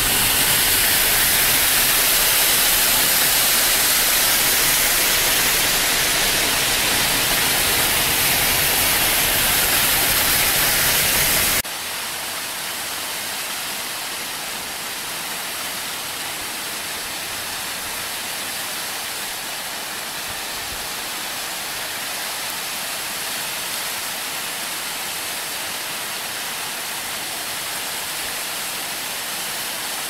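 Steady rushing of a waterfall cascading over rocks. About twelve seconds in it cuts off abruptly to a quieter, thinner steady hiss.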